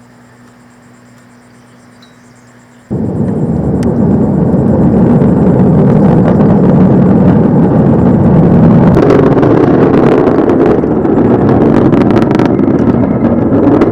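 Atlas V rocket launching: after a faint steady hum, the loud, dense rumble of rocket engines starts abruptly about three seconds in and holds steady.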